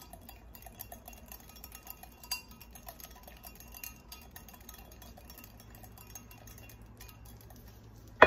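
Spatula stirring a thick mayonnaise sauce in a glass bowl: faint, scattered light clicks and scrapes against the glass, with one sharp clink right at the end.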